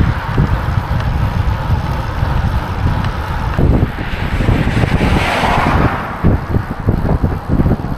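Wind buffeting the action camera's microphone while riding a road bike at speed, with a car passing and its tyre noise swelling and fading about five seconds in.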